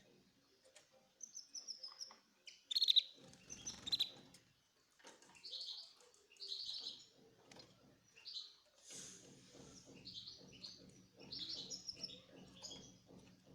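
Small breeding birds chirping and squabbling, with rapid short high chirps that come in clusters throughout. This is the bickering of a breeding pair after their eggs have hatched. A faint low steady hum joins about two-thirds of the way through.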